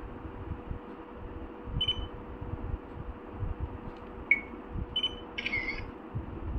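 A digital camera's short electronic beeps, three of them, and a brief shutter sound about five and a half seconds in, as a photo is taken. Low bumps of the camera being handled.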